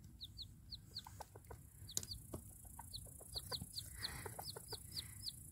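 A newly hatched chick peeping, a steady run of short, high, falling cheeps, with the broody hens clucking softly beneath. Faint throughout.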